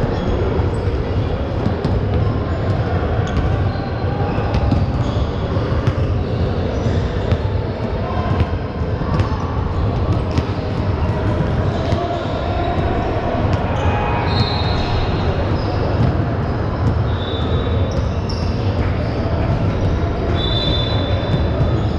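Basketball game: a crowd's chatter and voices, with a ball bouncing on the court. A few short, high squeaks come through in the second half.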